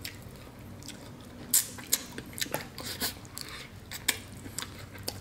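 Snow crab shell cracking as gloved hands pull it apart, with close-up chewing of the crab meat: a string of short, sharp cracks and clicks, irregularly spaced.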